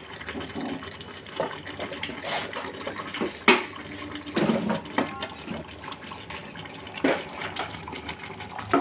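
Steel spoon knocking and scraping in a steel bowl of raw chicken pieces: a handful of sharp, briefly ringing clinks, the loudest about three and a half seconds in.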